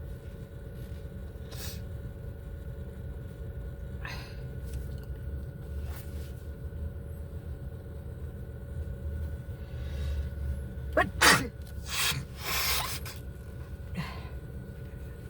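A person sneezes about eleven seconds in: a rising intake, then a sharp loud burst, followed by two shorter breathy bursts. Underneath is the steady low rumble of a car cabin.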